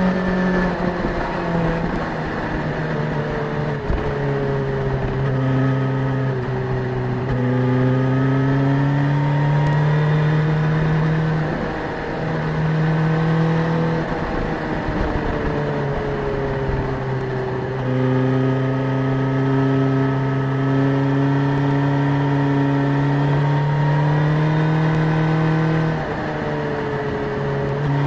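Suzuki GSX-S1000's inline-four engine under way, its note rising as it pulls and dropping at gear changes and throttle lifts several times.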